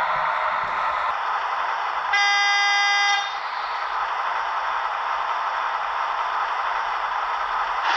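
Märklin H0 model V200 diesel locomotive sounding its horn once, for about a second, about two seconds in, as a recorded horn from the model's small built-in speaker. Its steady running sound carries on around it.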